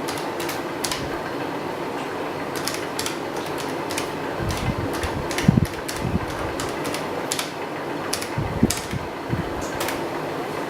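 Keys clicking irregularly as commands are typed on a ZX Spectrum +3 keyboard, over a steady background hum, with a few duller knocks around the middle.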